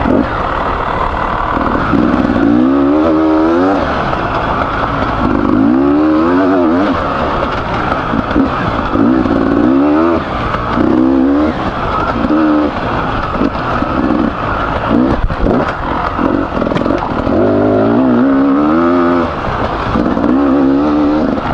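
Beta 300RR two-stroke enduro motorcycle engine, freshly rebuilt, revving up and falling back over and over as the throttle is worked on the trail.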